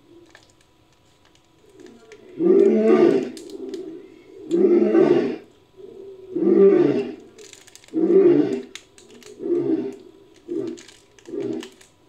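Lion roaring bout, used as a cave lion sound effect. About two seconds in come four long roars, then a run of shorter grunts that follow each other more quickly.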